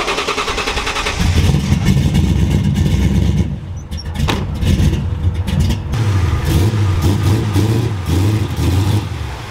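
A built twin-turbo two-valve V8 in an '04 Mustang GT being cranked in two long attempts, a choppy low rumble as it tries to fire, with a few sharp clicks between the attempts. The rumble stops near the end.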